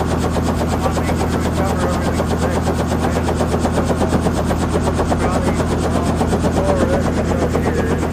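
Small helicopter running on the ground with its main rotor turning: a rapid, even beat of the rotor blades over the steady drone of the engine.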